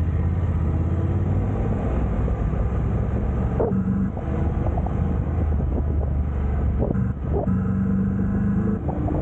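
A vehicle's engine running steadily while driving along a rough, potholed road, with a few sharp knocks and rattles from the bumps.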